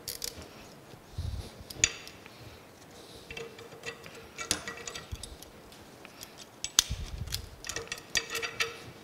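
Metal parts of a steam locomotive stoker engine's eccentric strap clinking and clanking as the two strap halves and their shims are handled and fitted back together. The clicks are scattered with a short metallic ring, with a sharp strike about two seconds in and another near seven seconds, and a couple of dull knocks.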